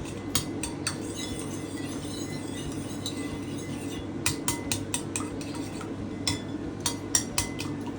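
Spoon beating a raw egg in a bowl: quick runs of clinks against the bowl, with softer scraping between them.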